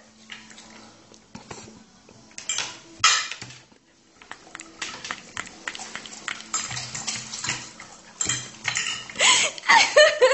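Irregular clinks and clatters of a dish as a dog eats macaroni from it, with louder clusters of knocks a few seconds in and near the end.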